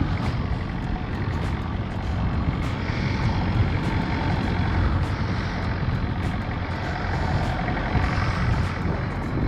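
Steady vehicle engine and road noise, mostly low rumble with small rattles.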